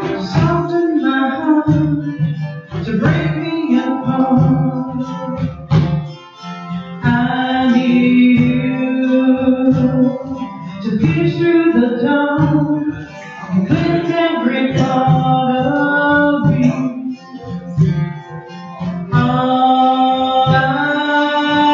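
A worship song performed live: a singer with strummed acoustic guitar.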